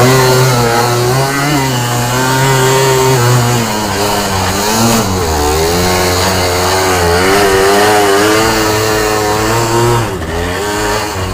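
Yamaha Blaster 200 quad's two-stroke single-cylinder engine running and revving up and down while riding, its pitch wavering continuously; it drops off about ten seconds in.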